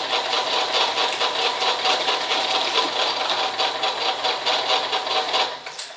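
Reassembled piston water pump, belt-driven by an electric motor, running with a fast, even mechanical clatter while it pumps water out of its hose, the pump working after its gasket repair. It cuts out about five and a half seconds in.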